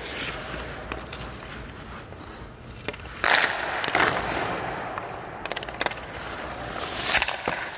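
Hockey goalie's skates and pads scraping across the ice as he pushes over to the post, a loud scrape about three seconds in lasting about a second. A few sharp clacks of stick and puck follow later.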